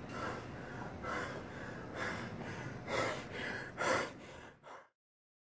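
A man panting hard, out of breath after intense exertion: quick heavy breaths about two a second, with two louder gasps near the end, then the sound cuts off abruptly.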